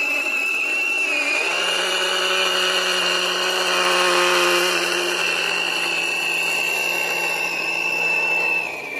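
Litheli U20 20 V cordless mini chainsaw running with a steady high whine. A lower hum joins about a second and a half in and stops near the end, where the sound drops in level.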